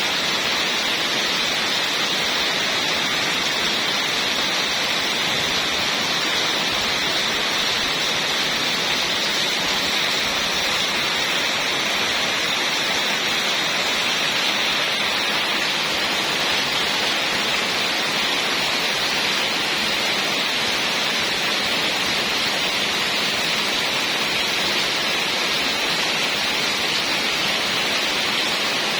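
Heavy rain falling steadily, a dense even hiss that does not let up.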